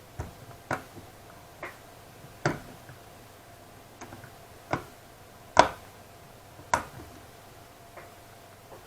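Irregular sharp clicks and taps, about a dozen, the loudest a little past halfway, from the parts of a graphics card and small tools being handled during a thermal paste replacement.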